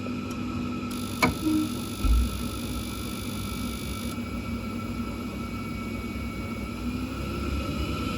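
Combi boiler running with a steady hum and rush, with a sharp click about a second in and a low thump about a second later.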